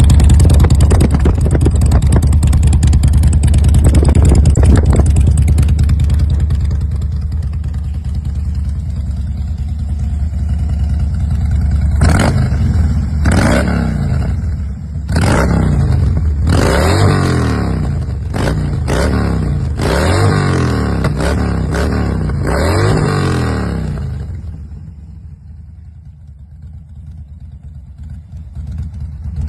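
Sports motorcycle with an aftermarket racing exhaust idling loud and deep, then revved in a run of short throttle blips, each rising and falling in pitch, before settling back to a quieter idle.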